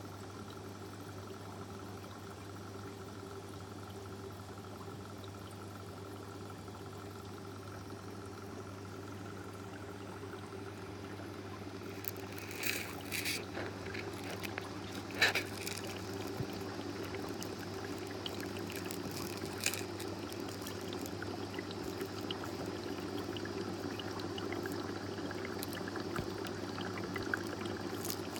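Aquarium water running over a steady low hum, with a few sharp clicks about halfway through.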